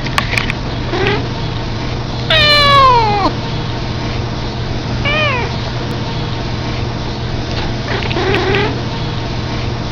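Domestic cat yawning out loud: a drawn-out call about a second long that falls in pitch, a couple of seconds in, then a shorter falling call about halfway through, with faint short sounds around them.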